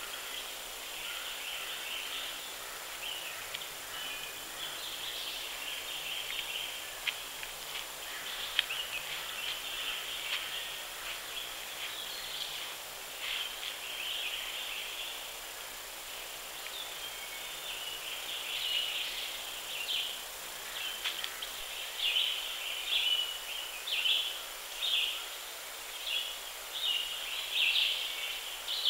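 Woodland ambience picked up by a trail camera's microphone: a steady high-pitched outdoor sound with small ticks. In the second half it comes in pulses about once a second.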